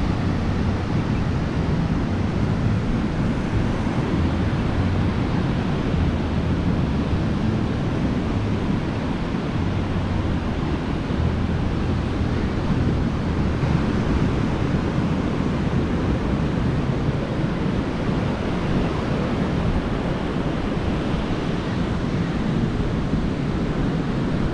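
Ocean surf from a big swell breaking and washing up the beach, mixed with strong onshore wind buffeting the microphone. A steady, even rushing noise, heaviest at the low end.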